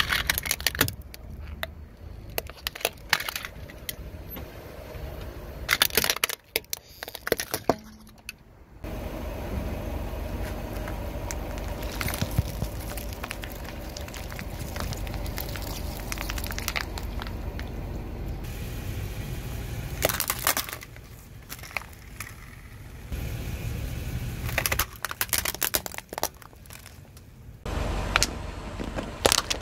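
A car tyre rolling slowly over brittle objects and crushing them: a series of sharp cracks and crackles over the low rumble of the car.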